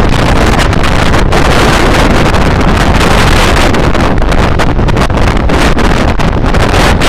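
Very strong wind blasting straight across the microphone: a loud, continuous rushing rumble with no letup.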